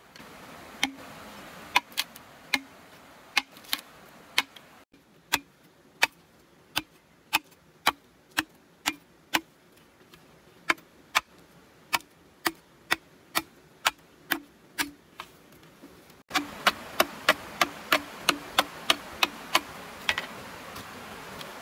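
Machete chopping into a thick green bamboo culm: a long series of sharp, evenly spaced strikes, about two a second, coming faster near the end.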